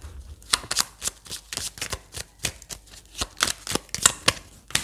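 Tarot cards being shuffled by hand: an irregular run of quick, crisp card snaps and flicks.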